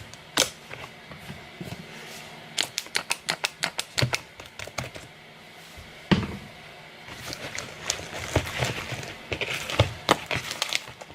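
Hands kneading and squeezing fluffy slime: a quick run of sticky clicks and pops, about six a second, starting about two and a half seconds in, then a single knock, then softer squishing with scattered pops.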